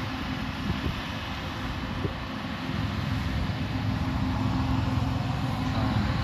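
Engine running steadily with a low rumble and an even hum, growing slightly louder about two and a half seconds in.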